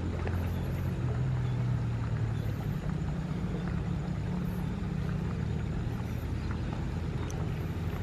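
A steady low engine-like hum, drifting slightly in pitch, over the rushing of water in an irrigation canal, with a few faint high chirps.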